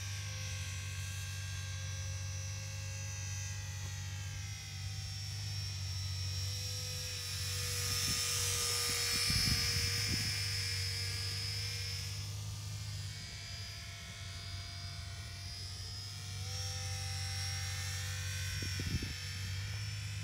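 Electric motor and propeller of an Eachine Mini Cessna model plane whining in flight, its pitch sliding up and down with the throttle and growing loudest as it passes close about halfway through. A steady low hum runs underneath.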